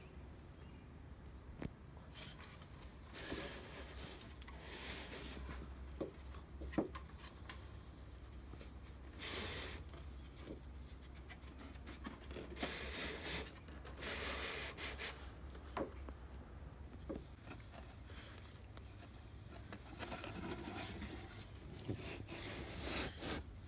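Cardboard shipping box being handled and opened: faint rubbing, scraping and tearing noises in bursts of a second or two, with a few small sharp knocks.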